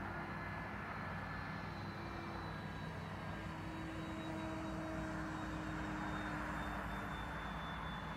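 90mm electric ducted fan of a FlyFly F-86 Sabre RC jet in flight, a steady rushing whine whose faint tones drift slowly in pitch.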